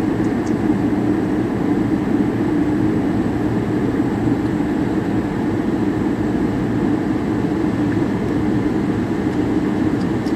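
Steady, low-pitched cabin noise of an airliner in flight: engine and airflow, unchanging throughout.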